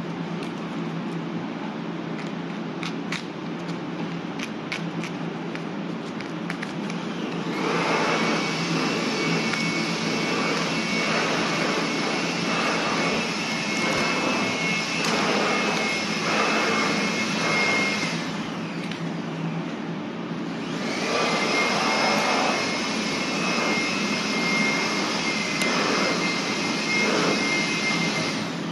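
A machine starts up about seven seconds in: a loud, steady rush of air with a high whine, like a vacuum cleaner or blower. It stops for about two seconds and then starts again.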